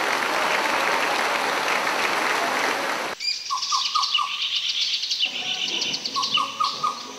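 A steady rushing hiss for about three seconds, cut off abruptly. Birdsong follows: two runs of about four quick descending chirps, with higher twittering over them.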